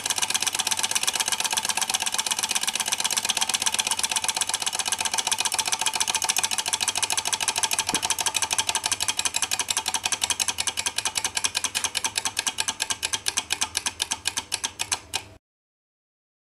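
Small Stirling hot-air beam engine model running with a rapid, even clicking clatter from its beam, linkage and flywheel. The beats gradually slow over the last few seconds, with the flame gone from its hot cylinder, then the sound stops abruptly.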